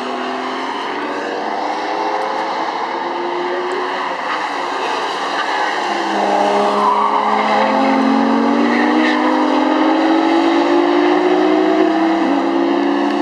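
Sports car engine under hard acceleration on a race track, its revs climbing slowly through long gears. The pitch drops at a gear change about midway and again near the end.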